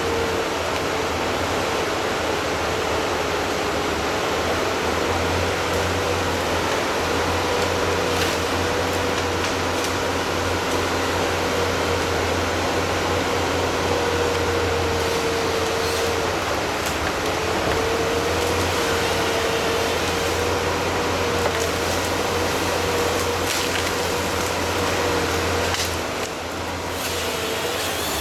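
SIFOR 414 forestry harvester running steadily, its four-cylinder engine and hydraulics working the boom and felling head, with a steady whine that wavers and dips briefly now and then. A few sharp clicks stand out, and the level drops slightly near the end.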